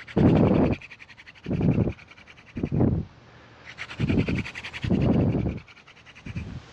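Hard, rhythmic breathing of a man spinning a hand-drill spindle, a loud rush of breath about once a second.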